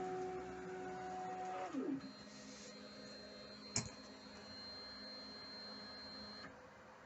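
Stepper motors of a belt-driven CNC hot-wire foam cutter whining as an axis moves: the pitch rises, holds for under two seconds, then falls away. A quieter steady motor hum with a faint high whine follows, with a single click about halfway through.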